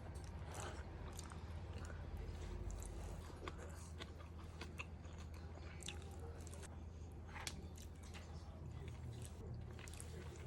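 A person chewing and biting food close to the microphone, with irregular crisp crunches and wet mouth clicks.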